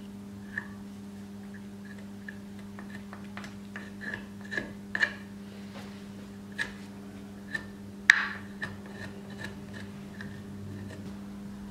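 Light, irregular taps and scrapes of a thin wooden stick working glue into a slot joint in a wooden window-frame piece, with one sharper knock a little past the middle. A steady low hum runs underneath.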